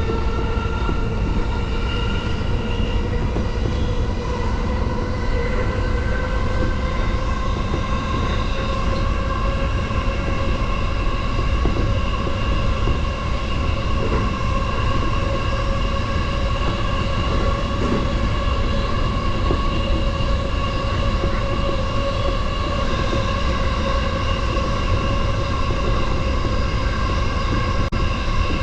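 JR Yokohama Line electric commuter train running, heard on board: a steady low rumble from the wheels and track, with the traction motors' whine in several tones rising slowly in pitch as the train gathers speed.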